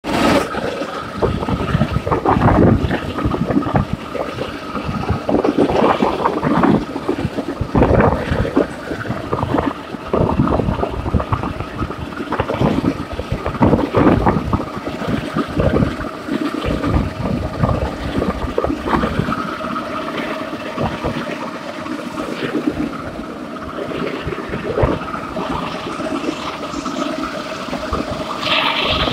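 A railway trolley's steel wheels rolling along the rails: a continuous rushing rumble with irregular knocks and a steady ringing tone.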